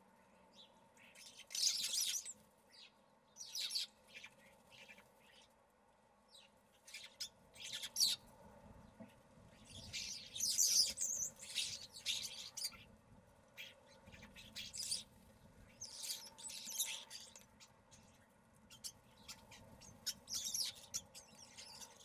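Common starlings calling in short, high-pitched, scratchy bursts that come every few seconds, with the busiest run of calls in the middle.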